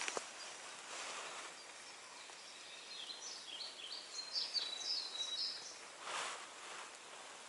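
A songbird singing a quick run of high chirping notes for about two and a half seconds, over a steady outdoor hiss. A brief rustle comes near the end.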